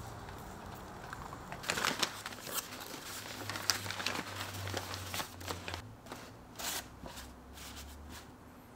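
Newspaper and paper towel crinkling and rustling in irregular bursts as they are unwrapped by hand. A low steady hum comes first and fades out under the rustling about a second and a half in.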